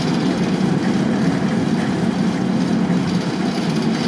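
Diesel shunting locomotive D4106's engine idling steadily, a low, even running note that does not rise or fall.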